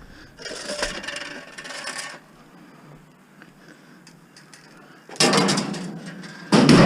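Scrap metal being handled and shifted while it is loaded: a stretch of scraping and rubbing, a quieter pause, then louder scraping and clattering near the end.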